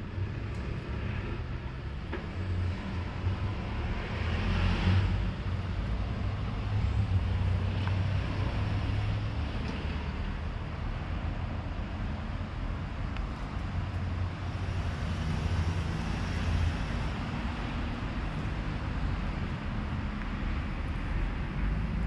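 Steady low rumble of road traffic, with a vehicle passing about four to five seconds in.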